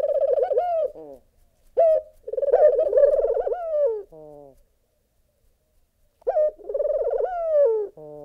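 A goat bleating in three wavering, drawn-out calls, each falling in pitch at the end, with a pause before the last one.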